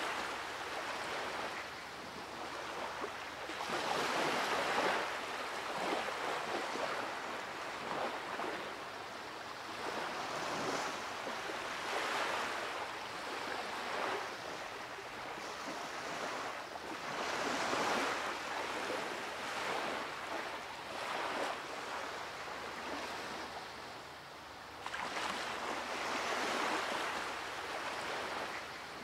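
Surf breaking and washing up on a sandy beach, swelling and falling back every several seconds.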